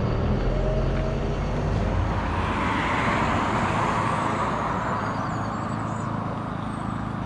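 A road vehicle passing, its tyre and engine noise swelling to a peak about three seconds in and then fading away.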